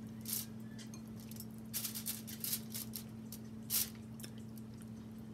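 Wet squishing of fingers working seafood in a bowl of thick, spicy butter sauce: one short squish just after the start, a cluster around two to three seconds in, and a sharper one near four seconds. A steady low hum runs underneath.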